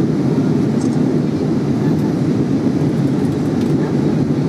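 Airbus A320 cabin noise in descent: a steady, even rumble of engines and airflow heard from a passenger seat.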